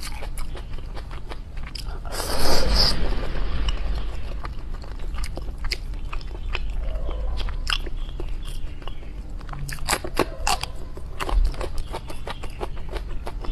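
Close-up sounds of a person eating tender red-braised pork belly: wet chewing and lip-smacking, with many short sharp clicks. About two seconds in there is a louder noisy burst lasting about a second.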